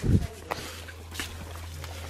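A dull thump at the start, then a few light clicks over a steady low hum: footsteps and the handling of a handheld camera while walking.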